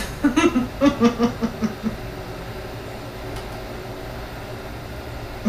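A person's voice making a few soft, quick sounds for about two seconds, then a steady low hum of room noise.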